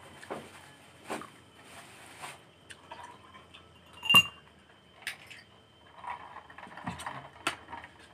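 Close-up eating sounds of people eating fish and rice by hand: chewing and lip smacks with scattered small clicks, and one sharp, briefly ringing clink about four seconds in.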